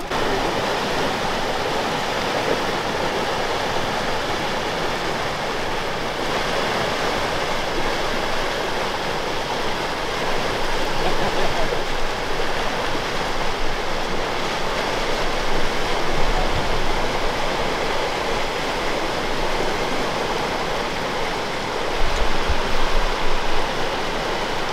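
Steady rushing of river water, an even wash of noise without any engine tone. A few low rumbles break in about two-thirds of the way through and again near the end.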